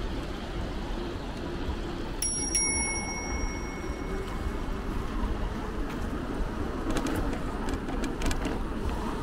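Bicycle bell rung twice in quick succession about two seconds in, its ring fading over a second or so, over a steady low rush of wind and road noise from riding. A few sharp clicks near the end.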